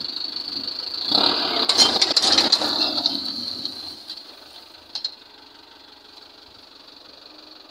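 Mahindra Arjun 605 DI tractor's diesel engine working as it pulls a disc plough through dry soil. It is loudest from about one to three seconds in as it passes close, then fades as it moves away. A steady high-pitched whine runs under it throughout.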